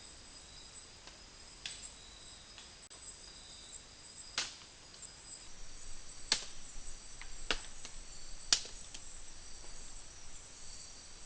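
About five sharp knocks or cracks spaced a second or two apart, the loudest one well past halfway, over steady high chirring of crickets. The uploader presents such knocks as Yowie wood knocks.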